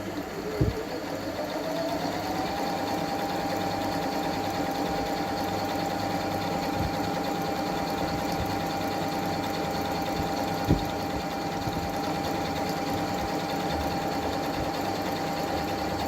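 Singer computerized sewing machine stitching a triple stitch: its motor speeds up over the first couple of seconds, then runs at a steady pitch, with one short knock partway through.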